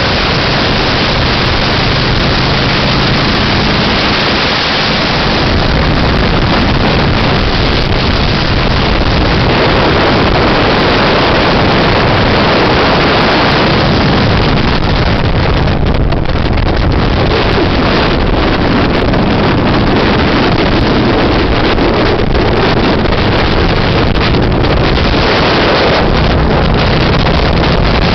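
Motorcycle riding at road speed: loud, steady wind noise on the microphone over the low, steady hum of the bike's engine.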